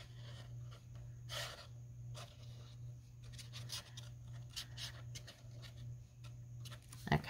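Faint small scratches and rustles of a fine metal-tipped liquid glue bottle's nozzle drawn along the edge of a cardstock paper flap as glue is laid down, with the paper being handled. A short hiss about a second and a half in, and a sharp knock near the end.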